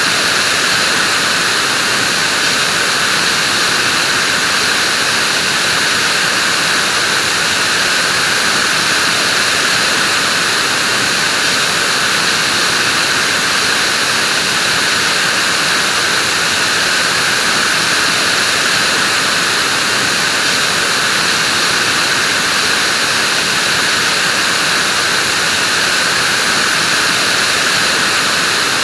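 Vacuum cleaner running steadily, a constant whooshing whir with no change in pitch or level.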